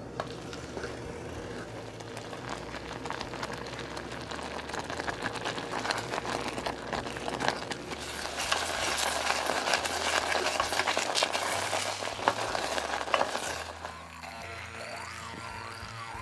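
Strawberry jam boiling in a saucepan as it cooks down and thickens: a dense crackling bubbling that builds, is loudest through the middle, and drops away suddenly near the end.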